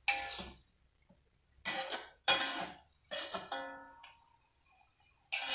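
Metal spatula scraping and knocking against a metal wok as stir-fried water spinach and bean sprouts are tossed, about five separate strokes, each leaving the wok ringing briefly.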